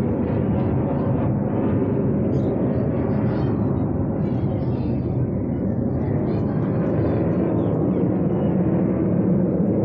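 Aeroplane engine noise, a loud, steady drone with no change in pitch.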